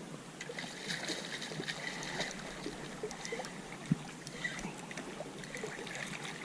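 Faint water lapping and sloshing, with scattered light clicks and one sharp knock about four seconds in.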